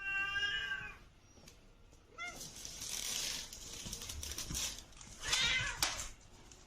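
A domestic cat meowing: one drawn-out meow at the start and a shorter rising call about two seconds in, with breathy, noisy sounds later on.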